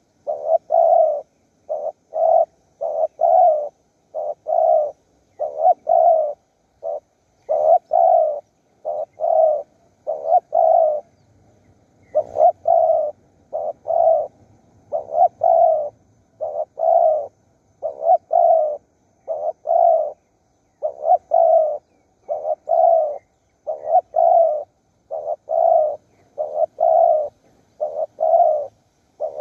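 Spotted dove cooing: short phrases of two or three coos repeating about every second and a half without a break.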